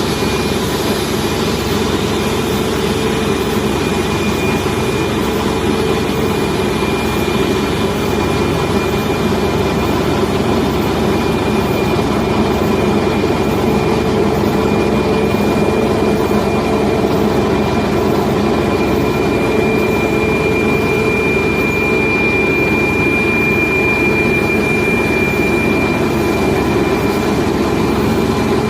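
Boeing 737 MAX's CFM LEAP-1B turbofan engine running steadily: a constant dense rumble with a thin high whine on top that grows a little stronger about two-thirds of the way in.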